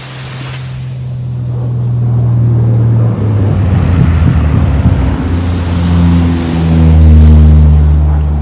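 Surf or wind hiss under a low motor hum. The hum grows louder, drops in pitch about three seconds in, and is loudest near the end.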